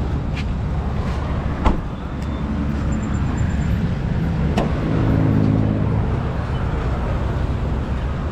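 Road traffic noise with a motor vehicle engine running close by, a steady low rumble. A sharp click comes nearly two seconds in and a fainter one about halfway through.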